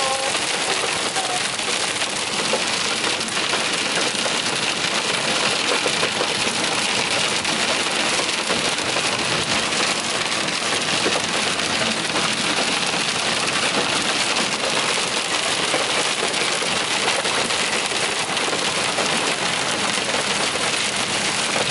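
Hail and heavy rain pelting a car's roof and windshield, heard from inside the cabin: a dense, steady patter of countless small impacts.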